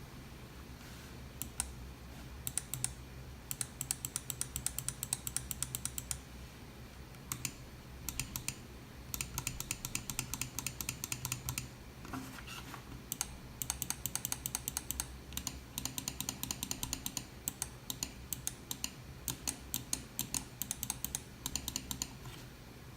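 Kailh GM micro switches in a Roccat Nyth gaming mouse clicking, in quick runs of many clicks with short pauses between the runs.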